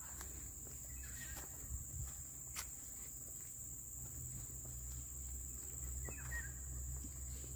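Steady high-pitched drone of insects in tropical trees, with a low rumble underneath and a couple of brief faint chirps.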